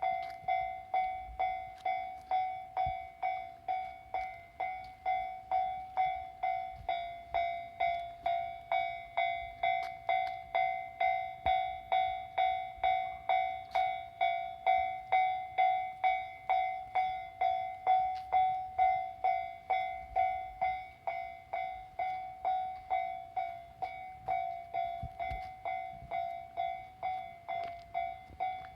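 Japanese level-crossing warning bell ringing: an electronic clang at a steady pitch, repeating evenly about twice a second.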